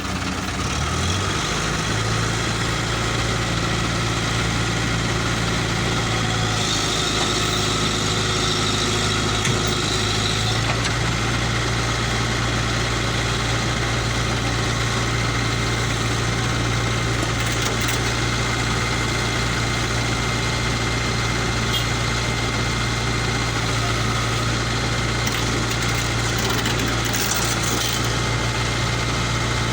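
Komatsu PC75 excavator's diesel engine running steadily, with a slight change in its note about ten seconds in.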